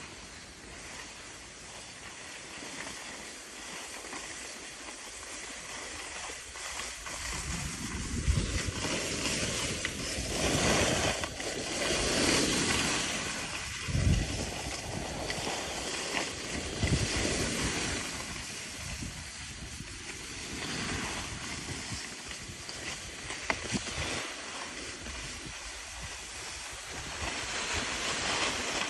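Skis sliding and scraping over packed snow, a hiss that swells and fades several times, with wind buffeting the microphone in low thumps.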